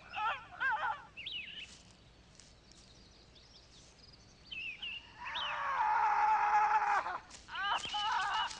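Birds calling, then about five seconds in a woman's long held cry of pain in labour, lasting about two seconds and falling off at the end, followed by short cries near the end.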